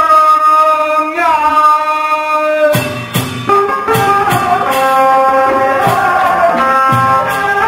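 Traditional Vietnamese ceremonial music. Two long held notes open it, and about three seconds in, drum and percussion strikes come in under a moving melody.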